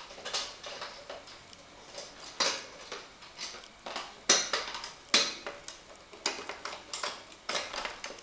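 Irregular light clicks and knocks of hands handling things, with a few sharper knocks about two and a half, four and a quarter, and five seconds in.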